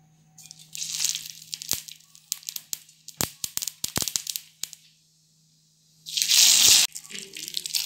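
Mustard seeds frying in hot oil in a small steel ladle, crackling with many sharp pops for a few seconds. About six seconds in, curry leaves go into the oil and set off a loud burst of sizzling that cuts off suddenly, followed by more crackling.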